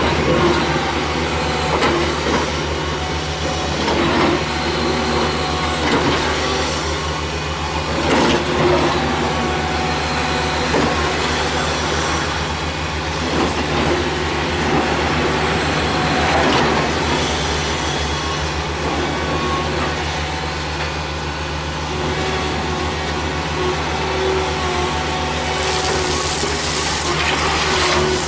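Caterpillar tracked hydraulic excavator working: the diesel engine runs with a steady low hum, and there are irregular bursts of scraping and pouring every few seconds as the bucket digs gravelly soil.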